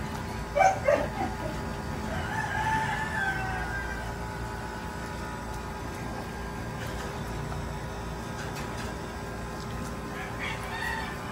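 A rooster crowing: one long call that rises slightly and falls away, about two seconds in, with a fainter call near the end. Two short loud calls come just before it, near the start.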